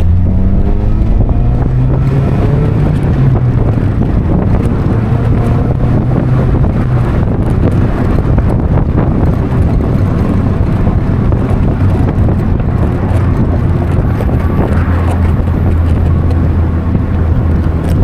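Mazda Miata's four-cylinder engine revving up under hard acceleration, its pitch rising over the first few seconds, then running steadily at speed with wind rushing past the open top.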